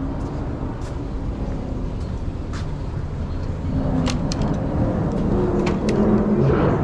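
Steady low rumble of road traffic and vehicles, with clicks from a glass shop door being pushed open about four seconds in. After that the louder indoor sound of the store comes through.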